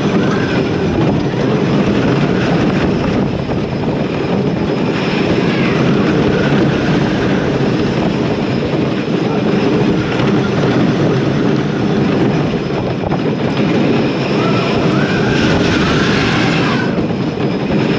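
Wooden roller coaster train running at speed on its wooden track, heard from on board: a loud, steady rumble and clatter of the wheels mixed with wind rushing over the microphone.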